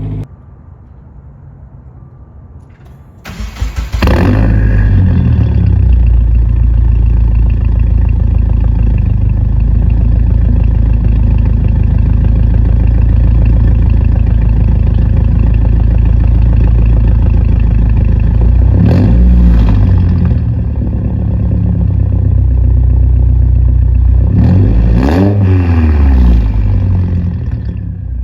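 Straight-piped VB Subaru WRX's turbocharged 2.4-litre flat-four warm-started: it fires about three seconds in with a sudden loud flare and settles into a loud idle. It is blipped twice, briefly, about two-thirds of the way through and again near the end.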